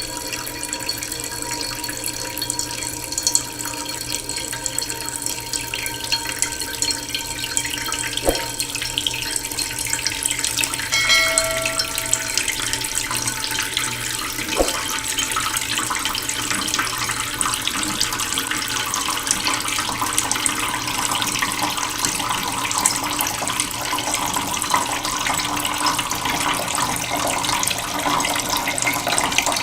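Waterfall running, a steady rush of splashing water.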